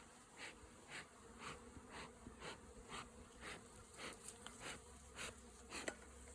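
Honey bees buzzing faintly around an opened hive, stirred up by the inspection. A soft hissing pulse repeats evenly about twice a second.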